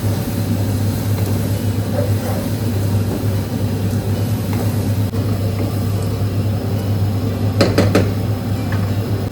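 A steady low hum, with a short clatter of dishes about seven and a half seconds in.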